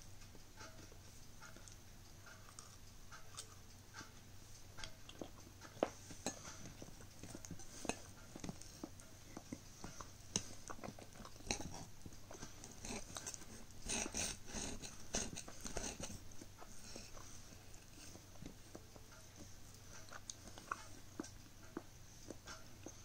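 Serrated knife and fork clicking and scraping on a ceramic plate while cutting a pastry, with faint chewing. A quick run of sawing strokes comes about two-thirds of the way through.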